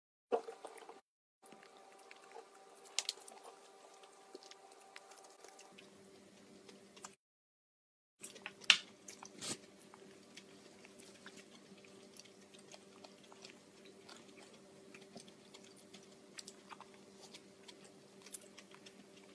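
A toddler chewing gimbap: faint, wet chewing with many small clicks over a steady low hum. One sharper click comes just under nine seconds in, and the sound cuts out entirely a few times, once for about a second.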